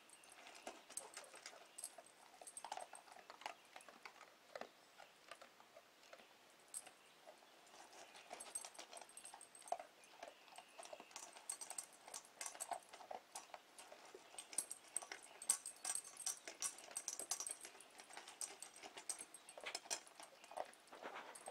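Doberman pinscher eating dry kibble from a stainless steel bowl: irregular crunching and clicking of kibble in the metal bowl, faster and denser in the second half.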